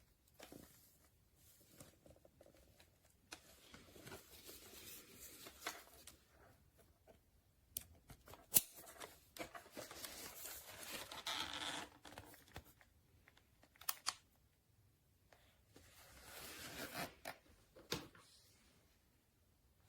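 Faint handling noises: on-and-off rustling and scraping, with a few sharp clicks, the loudest about a third of the way in.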